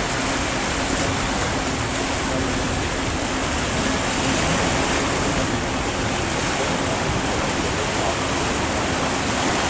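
Steady rushing of water churned up in the wake of a river sightseeing boat under way, with a faint steady hum underneath.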